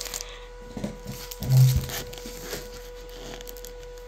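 Chocolate bar wrapper crinkling as it is handled, with one loud, dull thump about a second and a half in.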